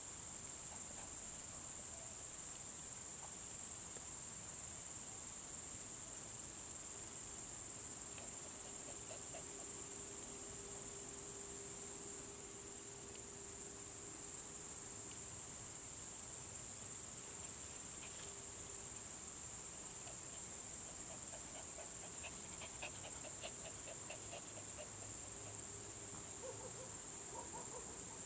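Crickets chirring in a steady, unbroken high-pitched chorus at night.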